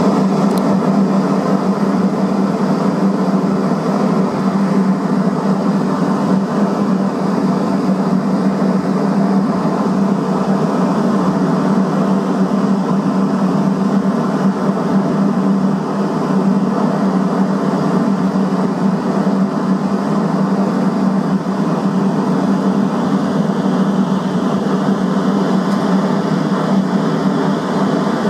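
A boat's engine droning steadily under way, heard on board as a constant low hum with no change in pitch or level.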